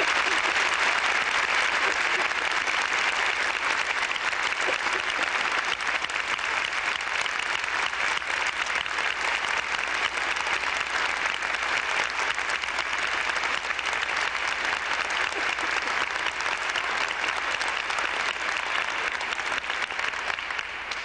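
A large auditorium audience applauding in one long, steady round that begins to die away near the end.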